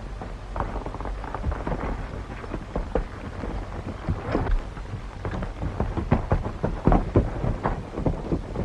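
Horse hooves galloping on hard ground, a rapid irregular clatter that grows louder and denser in the second half, over a steady background hiss and low hum.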